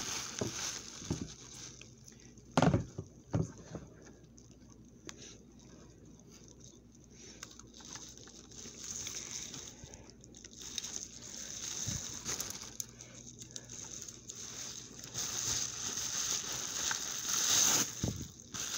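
Handling noise: crinkly plastic wrapping rustling as a cowrie-shell strand is lifted and moved, with scattered light clicks and knocks, two sharper ones about three seconds in, and the rustling growing louder near the end.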